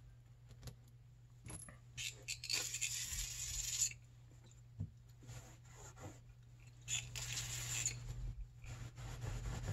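Small metal power-valve parts being handled on a towel: scattered clicks and clinks. Two longer hissing bursts come about two seconds in and about seven seconds in, over a steady low hum.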